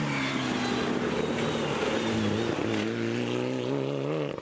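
Mitsubishi Lancer Evolution rally car's turbocharged four-cylinder engine running at high revs. The pitch eases slightly at first, then holds steady with a slight waver from about two and a half seconds in.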